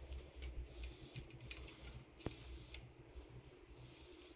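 Faint handling noises: soft rustling scrapes that come and go, with one sharp click about two seconds in, over a low hum.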